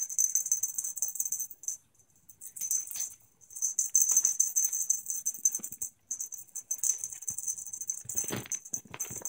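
Feather cat-wand toy being shaken in quick bursts, giving a fast, hissy jingling rattle that stops and starts. Near the end, two soft thumps as a kitten pounces and lands on the couch.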